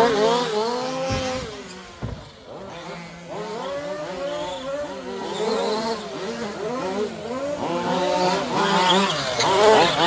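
Small two-stroke petrol engines of several 1/5-scale 4WD RC race trucks revving up and down, their pitch wavering with the throttle. The sound drops away about two seconds in and builds to its loudest near the end as two trucks pass close.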